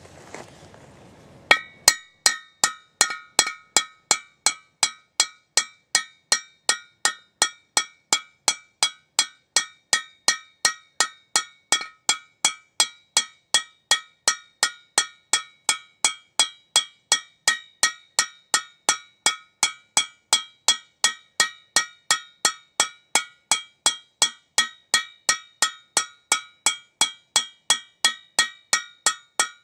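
Ball-peen hammer striking a steel steering knuckle in a steady rhythm, about two blows a second, each blow with a metallic ring. The blows are knocking the knuckle down onto a new front wheel bearing to seat it.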